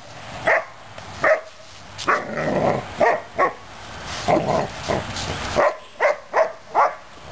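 Newfoundland puppy barking in play, about a dozen short, sharp barks at irregular intervals, some in quick pairs.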